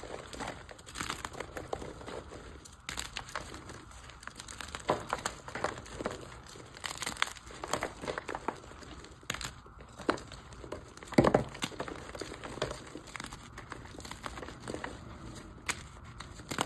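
Blocks of dyed gym chalk being crushed: a dense, irregular run of crunches and crackles as the chalk crumbles to powder, with one louder crunch about eleven seconds in.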